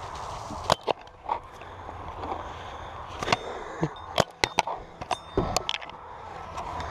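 Paintball gunfire: sharp pops at irregular intervals, several in quick succession from about three to six seconds in, over a low steady outdoor background.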